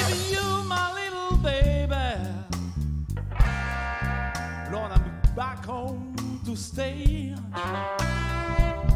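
A blues trio playing a slow blues: an electric guitar solo with string bends and vibrato over electric bass and a drum kit, with occasional sharp drum hits.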